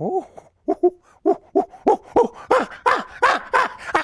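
A man's wordless vocalizing: a quick run of pitched, hoot-like syllables, about three or four a second, each sliding down in pitch and growing louder after the first second, performed as a tune in answer to a question.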